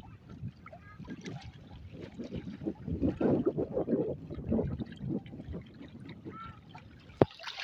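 Water splashing and sloshing around a small fishing boat, with irregular knocks, busiest about halfway through and ending with one sharp click.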